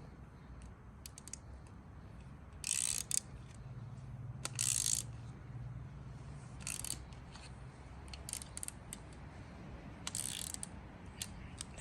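Ratchet wrench clicking in several short runs as bolts on a metal mounting plate are tightened, with scattered single clicks between the runs.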